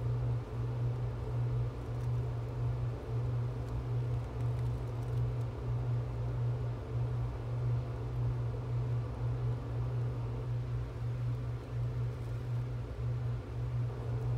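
Steady low hum with a faint hiss behind it, with no clear events.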